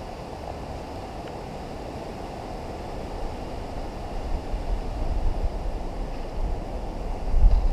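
Wind buffeting the action camera's microphone over a steady rush of flowing creek water; the low wind rumble builds from about halfway through and is strongest near the end.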